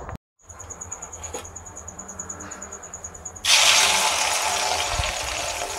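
Beaten egg and onion mixture hitting hot oil in a steel wok and sizzling loudly, starting suddenly about three and a half seconds in.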